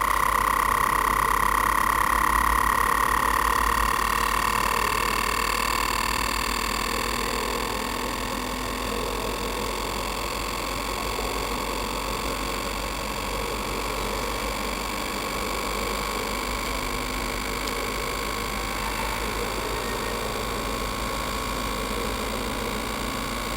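Steady machine hum with a high whine, loudest at the start and easing down over the first several seconds, then holding level.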